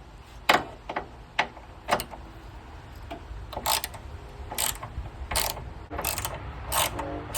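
Hand ratchet with a T30 Torx bit clicking in repeated short strokes as it turns out the trunk latch screws, the strokes coming less than a second apart.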